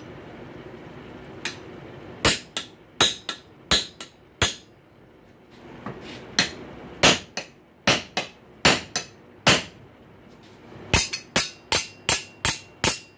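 Blacksmith's hammer striking a square punch into a hot steel rail spike on the anvil, starting a square hole from the back. The blows come in three quick runs of several strikes each with short pauses between, each strike ringing sharply.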